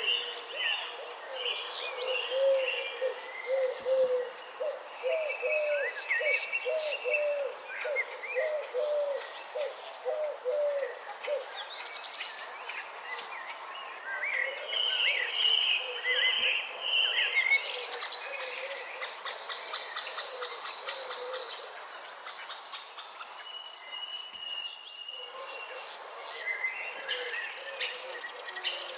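Garden ambience: insects keep up a steady high buzz while several birds sing short, varied phrases. For several seconds a low call repeats about twice a second.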